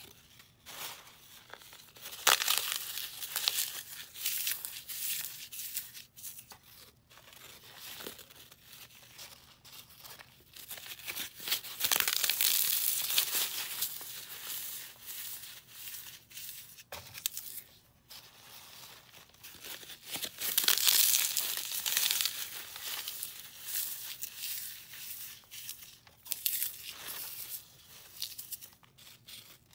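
Dry floral foam dusted with gym chalk and baby powder being squeezed and crumbled by hand: gritty crunching and crackling that comes in uneven bouts, with quieter gaps between.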